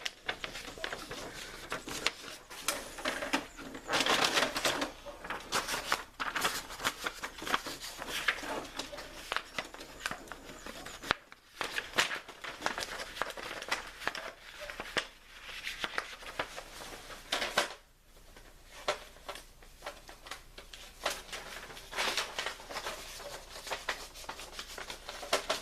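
Brother inkjet printer mechanism at work during print-head cleaning and test printing: irregular clicks and short whirring runs.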